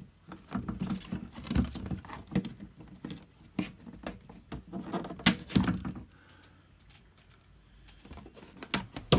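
Scissors snipping the loose tails off plastic cable ties: a run of sharp clicks and small plastic rattles, easing off about six seconds in, with a few more clicks near the end.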